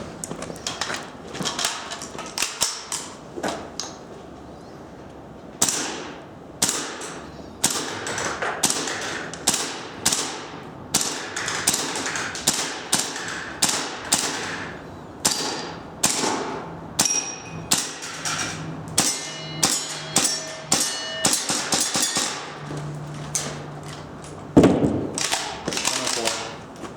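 Airsoft guns firing a long string of single shots, roughly one to two a second with short pauses, as pellets hit the course targets, some hits ringing briefly.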